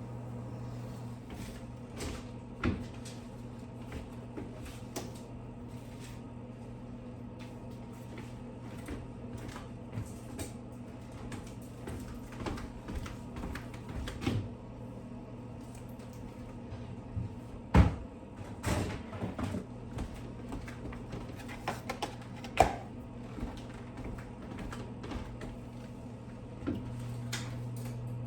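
Kitchen tidying: scattered knocks and clicks of things being handled and set down, with two sharper knocks standing out in the middle, over a steady low hum that fades after the first moment and returns near the end.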